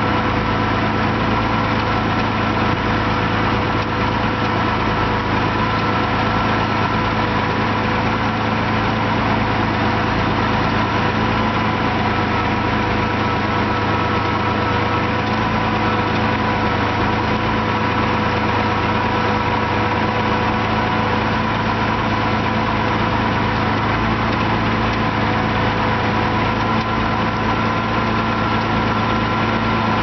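MF1200 tractor engine running steadily at an even, unchanging pitch while it pulls a plough through peat.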